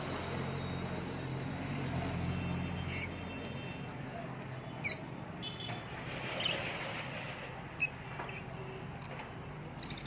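Several short, sharp bird chirps, the loudest about eight seconds in, over a steady low rumble.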